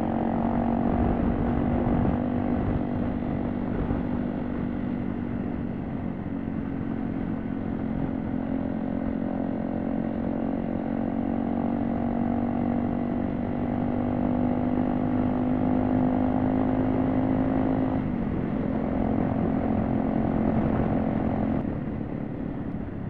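Honda CRF250L's single-cylinder four-stroke engine running at a steady cruise, heard from the rider's seat with tyre and road noise from the gravel underneath. The engine note drops about 18 seconds in, and the sound eases off near the end.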